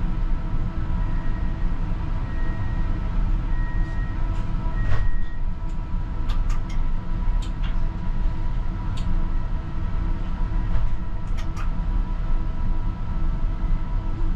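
CAF Urbos 100 tram standing still with its onboard equipment humming steadily. Four short high beeps sound about a second and a half apart in the first few seconds, and a few sharp clicks follow in the middle.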